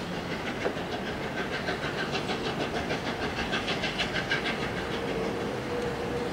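Three-cylinder steam locomotive 60163 Tornado working a train of coaches at low speed, its exhaust beating in a quick, even rhythm of hissing chuffs. A steady, held tone comes in near the end.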